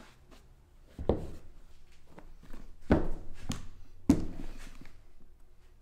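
Leather work boots handled on a wooden workbench: four solid thunks, the first about a second in and the others at around three, three and a half and four seconds, each with a short room echo.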